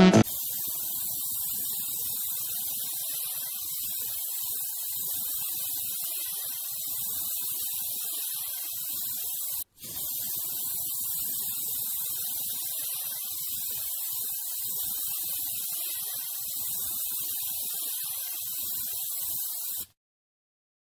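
Aerosol can of Camelin fixative spray hissing steadily as it is sprayed over a pencil and charcoal drawing. It breaks off for an instant about halfway through and stops abruptly just before the end.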